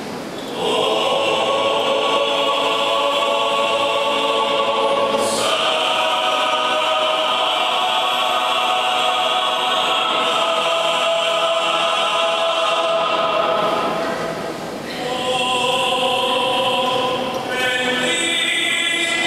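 Greek Orthodox liturgical chant sung by a choir in long held notes. The voices move to new pitches about five seconds in, fall away briefly around fourteen seconds, then resume and shift again near the end.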